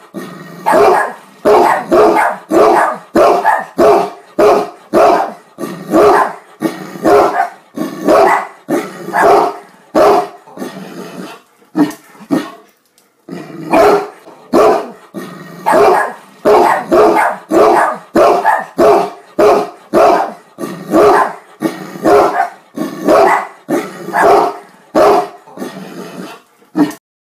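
Great Dane barking loudly and repeatedly, a long run of short barks about two a second, with a brief pause just under halfway through.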